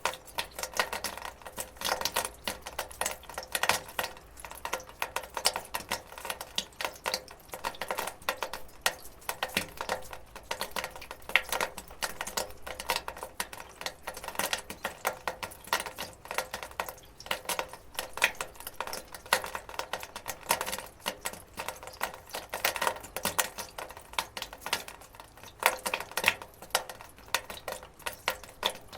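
Water dripping and running onto a metal gutter: many quick, irregular drips and ticks on the metal, several a second, with no steady rhythm.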